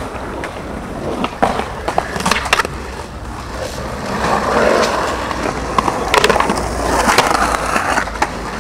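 Skateboard rolling on smooth concrete, its wheels making a steady rumble, with several sharp clacks from the board in the first few seconds. The rolling grows louder from about four seconds in.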